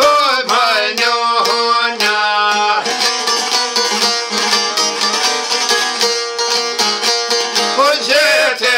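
A man singing to strummed long-necked lutes. The voice drops out about a second in, the lutes play on alone, and the singing comes back in near the end.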